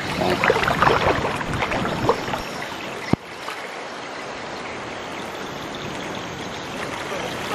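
Muddy river water splashing and sloshing around a wading fisherman's hands and legs as he works a cast net, settling into a steady rush of flowing water. A single sharp click about three seconds in.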